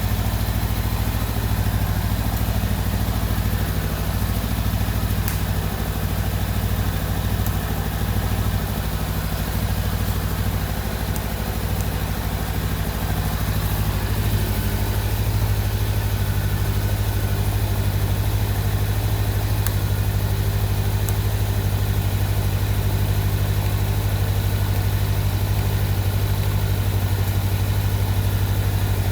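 Honda Rebel 500's parallel-twin engine idling steadily, its low hum a little fuller from about halfway through.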